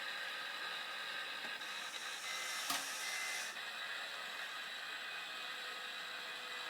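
Bruder toy sound module playing a steady hissing machine sound through its small speaker, thin and without low end, with a brighter burst of hiss about a second and a half in and a sharp click near the middle.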